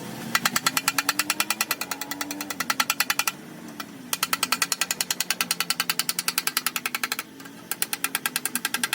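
Rapid machine hammering at about ten blows a second, in three bursts of roughly three seconds each, over background music.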